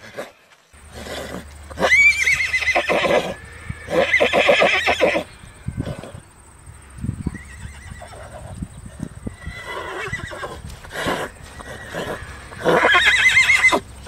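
Horse whinnying three times: a loud whinny about two seconds in that rises steeply and then quavers, a second around four seconds, and a third near the end, with fainter calls between them.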